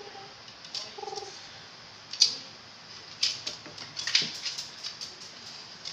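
Jack Russell terrier close to the microphone: two short whines in the first second or so, then a run of sharp clicks, snuffles and scuffling as it licks and moves about, the loudest a sharp click about two seconds in.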